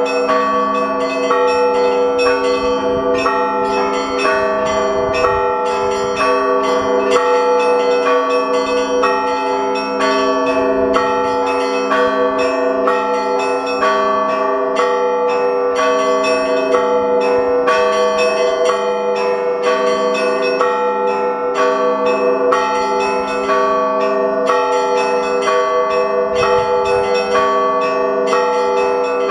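Russian Orthodox monastery bells rung together in a continuous peal. Smaller bells are struck quickly in a repeating pattern over the steady, lingering tones of the larger bells.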